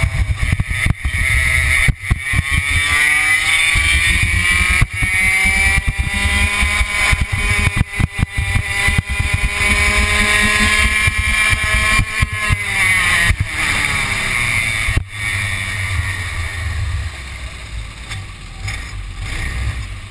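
Onboard sound of a Tony Kart racing kart's two-stroke engine accelerating, its pitch climbing steadily for about ten seconds down a straight. It drops sharply about thirteen seconds in as the driver lifts off, and runs quieter and lower near the end.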